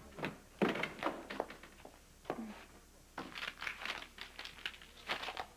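Scattered rustling, crinkling and light taps from a person moving about a room and handling things. The noises come as irregular short clicks, with a dense cluster in the second half.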